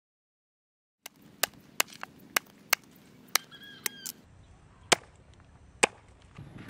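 Machete chopping through a green plant stalk and striking the wooden board beneath, about ten sharp chops at uneven intervals, starting about a second in.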